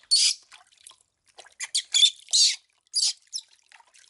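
Water splashing and dripping in a washtub as a baby monkey is dipped in and lifted out during a bath, in short irregular splashes with brief gaps between them.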